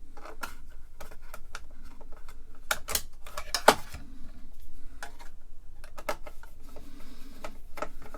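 Screws and sheet-metal parts of a computer's floppy drive assembly clicking and knocking as they are handled and worked into place: irregular sharp clicks, with the loudest knock a little under halfway through.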